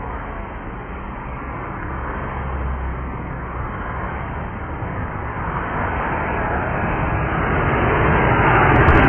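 Jet engines of a Southwest Airlines Boeing 737-700 (CFM56 turbofans) on landing approach, a steady rumbling roar growing evenly louder as the plane closes in low overhead.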